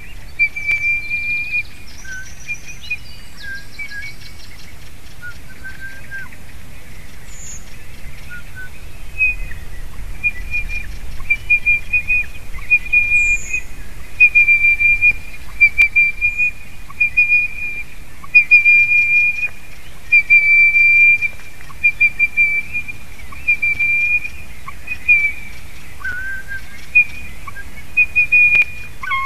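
White-tailed eagle calling from above in a long series of short, high yelping notes, a few per second, that grow loud from about nine seconds in: the nest's female whining at a strange male eating her egg. Small birds chirp faintly in the background.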